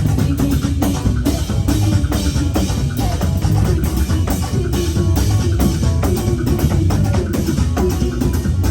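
Live church band music with a steady drum-kit beat, bass and sustained keyboard-like notes.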